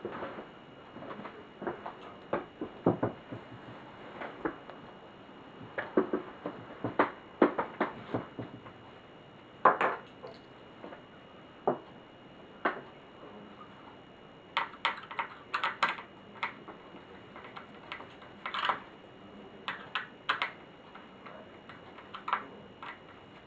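Irregular clicks, taps and light clatter of the hard plastic and metal parts of an HP Pavilion dv6000-series laptop being handled while it is taken apart, with a busier run of clicks past the middle.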